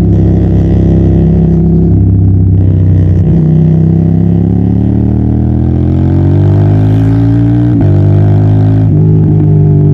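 Yamaha TDM900 parallel-twin motorcycle engine running under way; the revs climb from about halfway, then drop sharply as the quickshifter snaps an upshift into the next gear, and the engine pulls on steadily.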